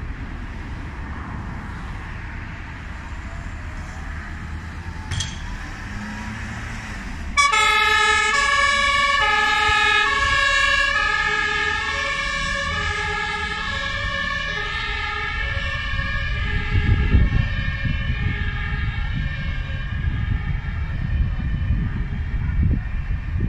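German fire engine two-tone siren (Martinshorn) switching on suddenly about seven seconds in, alternating evenly between a high and a low note, then growing fainter over the last few seconds. Before it comes on there is only a low rumble.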